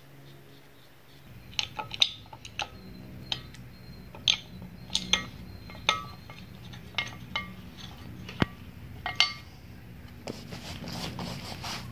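Irregular light metallic clinks and taps as bolts and a steel coil-spring retainer cup are handled and set onto an early Ford Bronco front axle spring perch, a few of the knocks ringing briefly.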